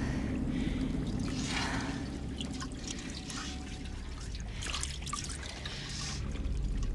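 Water trickling and splashing in a few swelling bursts over a steady low rumble, with scattered small clicks.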